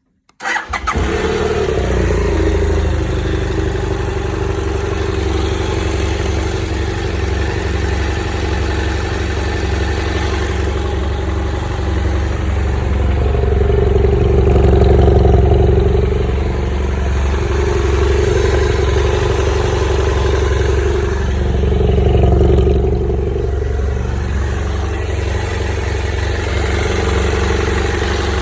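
BMW F800GS parallel-twin engine started about half a second in, then idling steadily, its sound swelling twice along the way.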